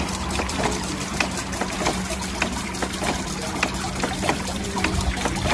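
Water from a garden fountain water feature falling and splashing into a pond, a steady trickle with many small splashes and drips. A low steady hum runs underneath.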